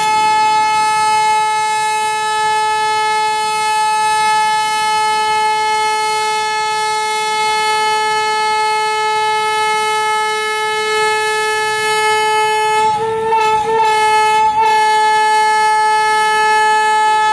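A single steady, horn-like tone held without a break, wavering and faltering briefly about three-quarters of the way through.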